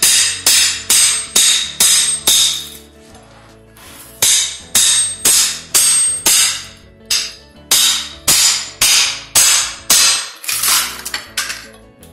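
Hammer driving a wood chisel into cut hardwood floor boards, sharp blows about two to three a second in runs broken by short pauses, splitting out the water-damaged boards.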